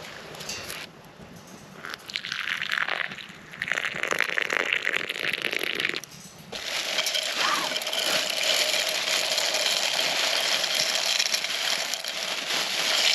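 Food frying in a pan over a campfire: a dense sizzling and crackling that breaks off briefly about a second in, again a little after three seconds and around six seconds, then sizzles on steadily.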